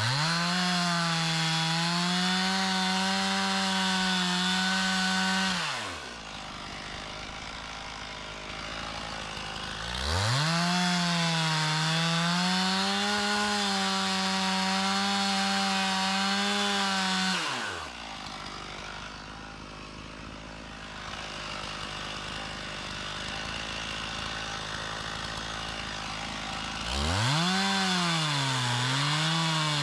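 Stihl MS 391 two-stroke chainsaw bucking downed trees for firewood: it revs up to high speed and holds there for about six seconds, drops back to idle, revs and holds again for about seven seconds, idles, then revs up once more near the end.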